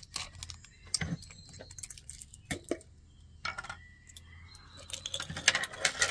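Glass canning jar being handled with scattered clicks and scrapes as its metal lid comes off. About five and a half seconds in, a jarful of jewelry and chains is tipped out onto a tray, clattering and jingling.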